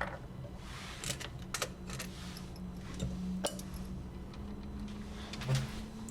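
A few scattered light clicks and small metallic clatters, as of tools and small parts being handled on a workbench, over a low steady hum.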